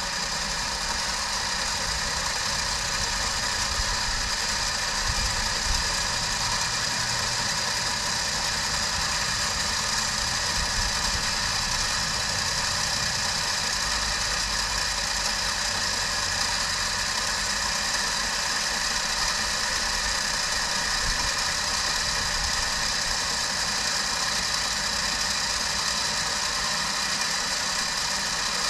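Electric ATV winch on a Polaris 570 quad running steadily, reeling a new, thicker 7 mm line onto its spool.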